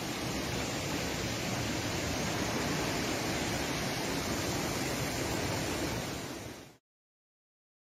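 Steady rushing noise of a river in flood, its fast brown water running high under a bridge. It cuts off abruptly near the end into complete silence.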